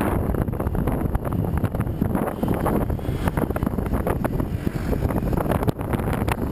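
Wind buffeting the microphone of a camera mounted outside a moving Jeep Wrangler JK, over a low rumble of the vehicle on a stony track, with frequent short knocks and rattles.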